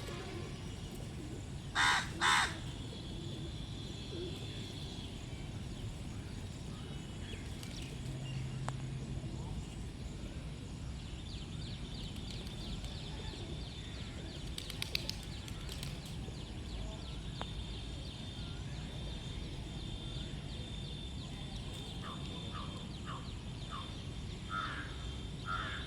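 A crow caws twice in quick succession about two seconds in, loud and close. Behind it a steady outdoor background carries a thin, high-pitched drone, and near the end come a run of short, quieter calls.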